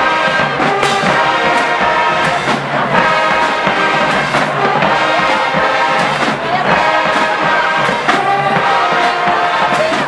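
HBCU marching band playing: a full brass section holding loud chords, with sharp percussion strikes marking the beat.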